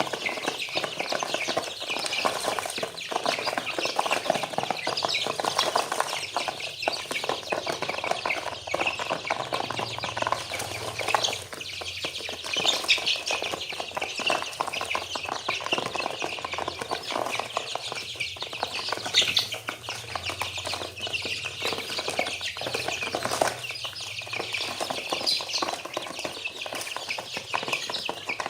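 A flock of chicks nearly a month old peeping and chirping without a break, with many short calls overlapping.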